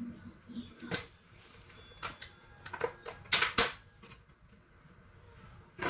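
Plastic food packaging crinkling and plastic takeaway sushi trays clicking as they are handled, in a string of short crackles, loudest a little past the middle.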